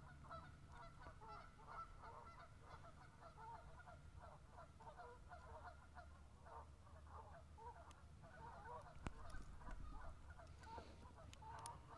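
Faint calling of a flock of birds, with many short calls overlapping several times a second, over a low steady rumble. A couple of light clicks come near the end.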